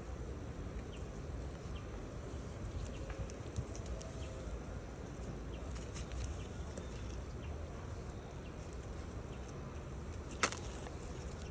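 Outdoor ambience: a steady low rumble with faint scattered ticks, and one sharp click about ten seconds in.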